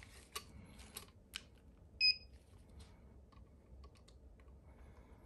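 One short electronic beep about two seconds in, typical of a digital trigger pull gauge, among a few faint clicks from handling the pistol and gauge.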